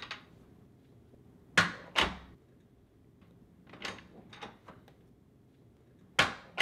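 A door shutting with two sharp knocks about a second and a half in, a few quieter knocks around four seconds, and another sharp knock near the end as the door is opened again.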